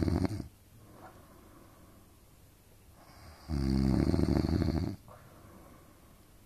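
A sleeping adult snoring loudly, with a rattling snore roughly every four and a half seconds. One snore ends about half a second in, and another runs for about a second and a half past the middle, with soft breathing between.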